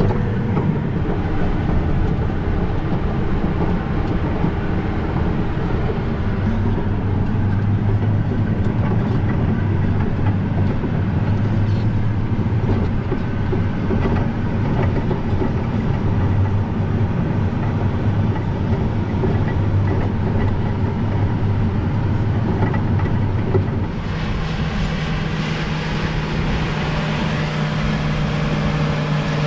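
Heavy harvest machinery running steadily in a wheat field, a deep diesel engine drone with a rattling clatter. The engine tone changes abruptly about 24 seconds in.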